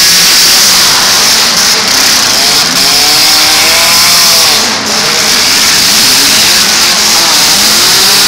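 Engines of several compact demolition derby cars revving at once, their pitches rising and falling and overlapping, over a loud steady hiss.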